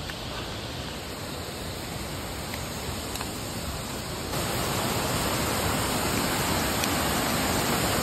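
Rushing water of a small waterfall cascading over rocks into a creek pool: a steady hiss that grows louder about four seconds in.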